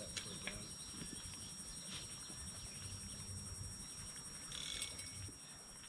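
Faint, steady high-pitched insect chirping, with a few small clicks and a short brighter chirp about four and a half seconds in.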